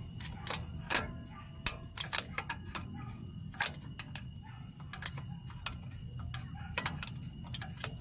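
Irregular sharp metallic clicks and taps of hand tools on an engine's valve train while the valve clearance is being set, over a steady low hum.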